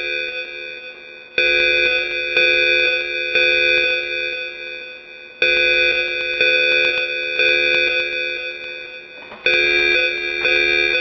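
Fire alarm evacuation signal sounding as a ringing electronic chime: groups of bell-like strokes about a second apart, each group dying away before the next starts about four seconds later.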